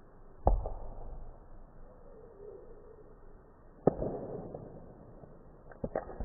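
A hard cricket ball struck with a chunk of ice cricket bat: sharp cracks as the ice meets the ball and shatters. The loudest crack comes about half a second in, another about four seconds in, and two quick knocks near the end.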